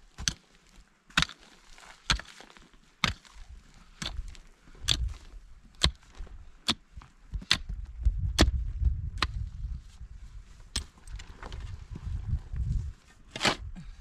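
Pickaxe and shovel chopping into dry, stony soil: sharp strikes a little under once a second, with a low rumble joining about halfway and a louder strike near the end.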